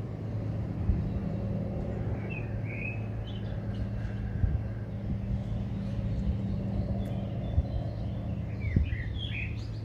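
Small birds chirping in short calls, about two seconds in and again near the end, over a steady low hum and a few brief low thumps.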